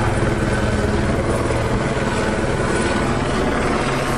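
Helicopter flying overhead, its rotor beating in a steady, rapid chop, really loud.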